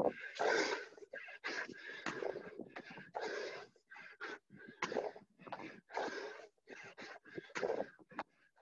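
A person panting hard in short, quick breaths, about one to two a second, from the exertion of doing burpees.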